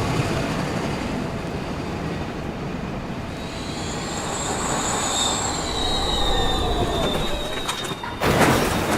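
Steady rumbling noise with high squeals in the middle, like metal wheels, then a sudden loud crash near the end.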